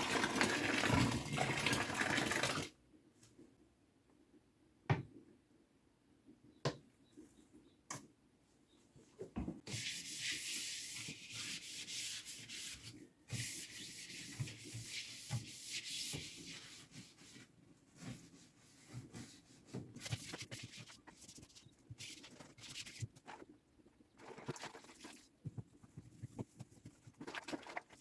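Water running hard for about two and a half seconds, then cut off suddenly. Then scattered knocks and clicks, and long stretches of scrubbing, something rubbing back and forth over a surface while a fridge is cleaned.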